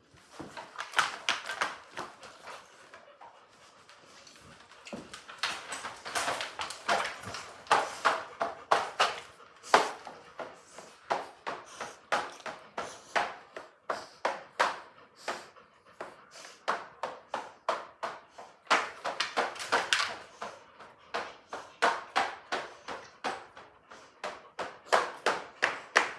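Dog panting, a steady run of short, noisy breaths at about two to three a second.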